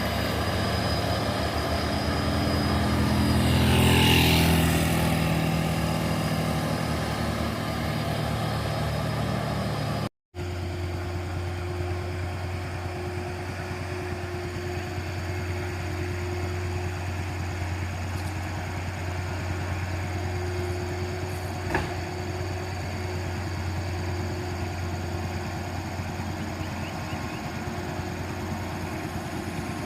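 Truck diesel engines running. About four seconds in, a vehicle passes close, its sound swelling and falling in pitch as it goes by. After an abrupt break about ten seconds in, a steady engine hum carries on, with a single sharp click later on.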